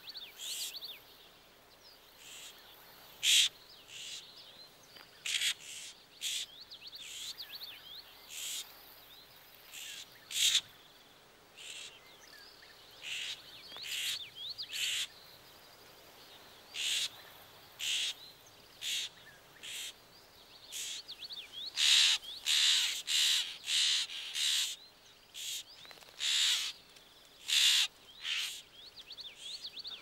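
Florida scrub-jays giving harsh, repeated scolding alarm calls while mobbing an indigo snake near their nest. The calls come singly and spaced apart at first, then thick and fast in the last third.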